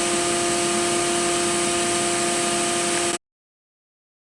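Mazak VCN 410A-II vertical machining center running, a steady hum with several fixed whining tones over a constant hiss. It cuts off abruptly about three seconds in.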